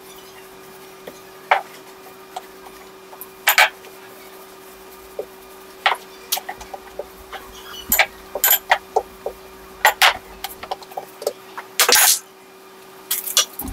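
Wooden rolling pin rolling out dough on a kitchen counter: irregular sharp knocks and clicks as the pin and hands move and press the dough, over a faint steady hum.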